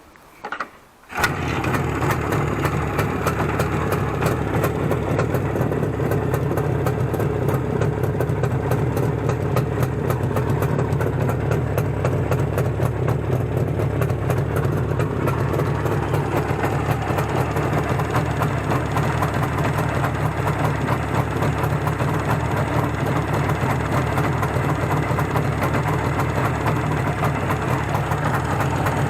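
Izh Jupiter-5 motorcycle's two-cylinder two-stroke engine starting about a second in, then running steadily at an even idle.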